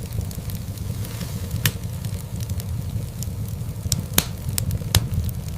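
Wood fire crackling in a fireplace over a steady low rumble, with scattered small crackles and a few louder sharp pops, the sharpest about four seconds in.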